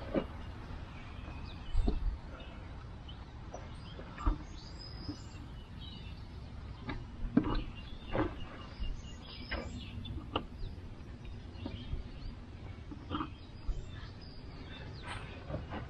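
Irregular clicks and knocks of parts and tools being handled, spaced a second or more apart, over a low steady rumble, with a few faint bird chirps.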